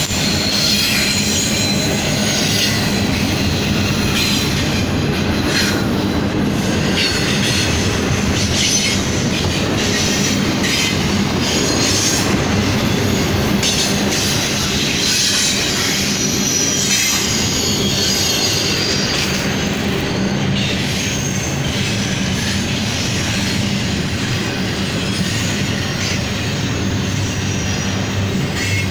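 Double-stack intermodal container train rolling past at close range, a steady rumble of steel wheels on rail with high-pitched wheel squeal that comes and goes.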